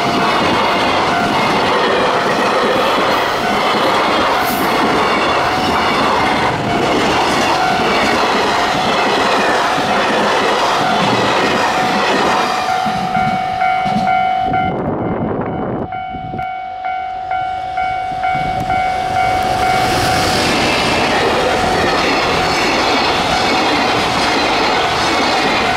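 Container freight trains passing close by: wagons rumbling and clattering over the rail joints. About halfway through the first train draws away and a steady high tone sounds in the lull, then a second freight train comes by about 20 seconds in.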